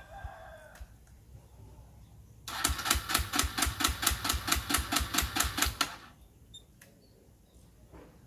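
Kawasaki D-Tracker 125 being cranked without starting: about three and a half seconds of rapid, even mechanical clatter, roughly six beats a second, that stops without the engine catching.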